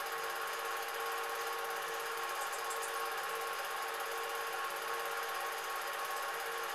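Cine projector running: a steady mechanical whir with a constant hum and hiss that does not change.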